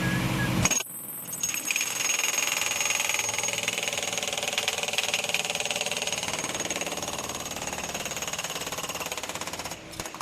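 Pneumatic jackhammer hammering rapidly and steadily. It starts about a second in, just after a steady engine drone cuts off, and eases near the end.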